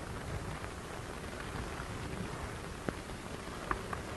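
Steady hiss and faint crackle of an old optical film soundtrack, with a couple of faint clicks near the end.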